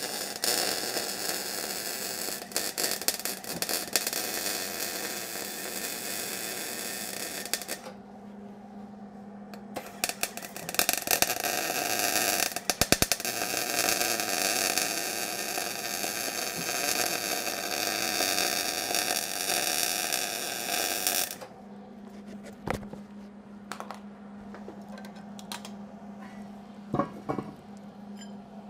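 Wire-feed welder arc crackling steadily as a bead is laid around the inside of a worn truck wheel hub bearing race, the weld being a trick to shrink the race so it can be removed. It runs in two stretches with a short break about eight seconds in, and stops about three quarters of the way through. After that a low hum and a few light knocks are heard.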